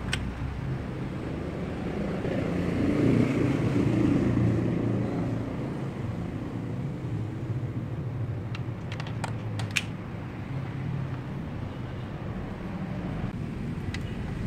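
Background vehicle noise: a steady low hum that swells, like a vehicle passing, about three to five seconds in and then eases off. Several light, sharp clicks of parts or tools being handled follow later.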